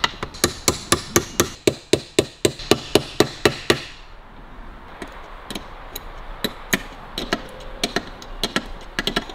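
Hand tool working the nuts and screws on a Harley-Davidson WLA gearbox casing: sharp metal clicks come evenly, about four a second, for roughly four seconds. After that there are lighter, scattered clicks and clinks as a spanner is set on the nuts under the casing.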